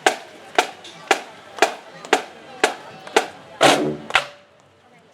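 Marching band drumline keeping a steady beat with sharp stick or rim clicks, about two a second. About three and a half seconds in, a fuller, heavier drum hit rings for about half a second, followed by a short lull.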